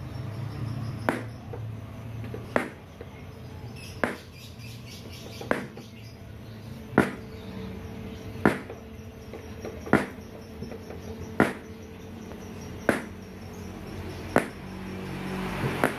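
Sharp test-pulse clicks from loudspeaker cabinets, evenly spaced at about one every second and a half, the pulse signal of a speaker polarity (phase) tester being checked at each cabinet.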